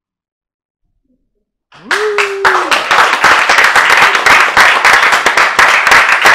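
A small audience applauding: quiet for about two seconds, then many hands start clapping and keep on loudly, with one voice whooping briefly as the applause begins.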